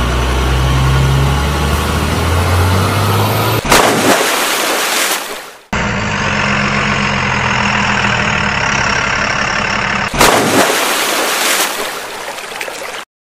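Truck engine sound effect running steadily, broken by a loud rushing burst about four seconds in and again about ten seconds in.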